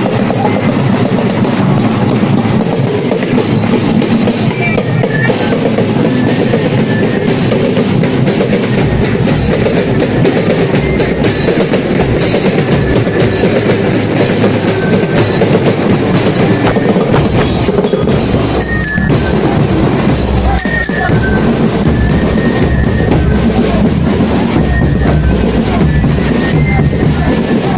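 Loud, continuous music of drums and mallet percussion playing without a break.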